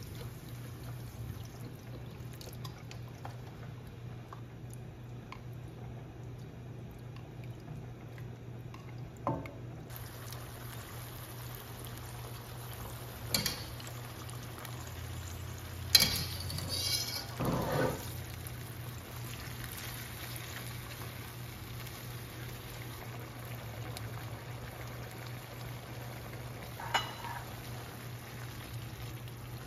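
Chicken stock simmering in a frying pan over a steady low hum. Around the middle there are a few clinks and wet splashes as pasta is lifted into the pan and tossed, the loudest about halfway through, and one more clink near the end.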